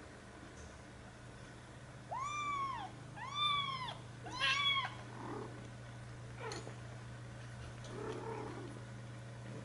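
Four-week-old Birman kitten mewing three times in quick succession, each mew high-pitched and rising then falling.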